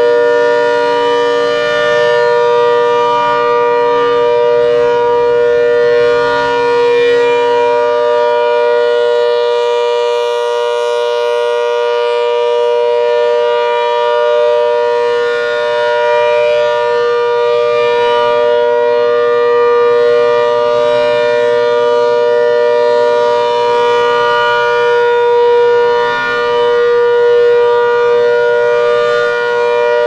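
ACA Hurricane MKII rotating outdoor warning siren sounding a steady alert signal, a continuous two-note chord that swells and fades slightly as the horn turns.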